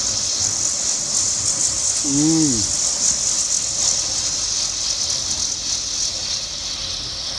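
Steady rushing hiss of tropical-storm wind and rain, flickering slightly with the gusts. About two seconds in, a man gives a short rising-and-falling hum.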